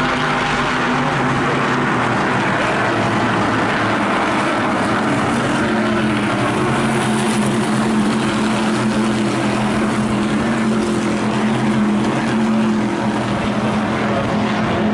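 Several SK Light Modified race car engines running hard at speed around a short oval, a steady loud drone of overlapping engine notes, with one note standing out more strongly in the middle.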